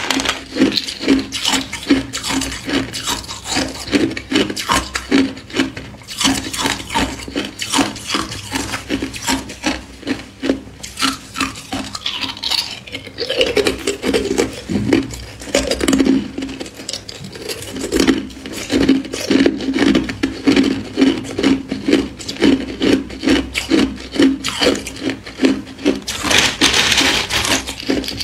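Hard ice cubes being chewed, a steady run of crisp crunches about three a second. Near the end there is a brighter, hissy stretch.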